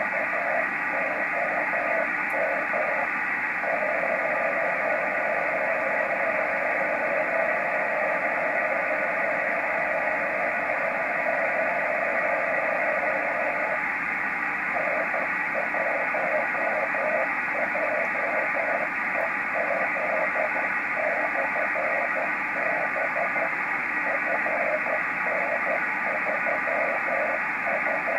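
A 10 GHz amateur radio beacon heard by rain scatter through a single-sideband receiver: a smeared tone in steady receiver hiss. It is keyed on and off in Morse code, with a long steady carrier from a few seconds in until about halfway.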